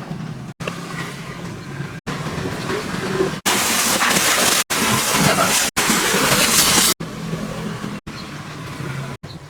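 Pressure washer spraying water, heard as a series of short clips joined by abrupt cuts. The loudest stretch is a steady hiss of spray lasting about three seconds in the middle; the other clips carry a weaker hiss over a low hum.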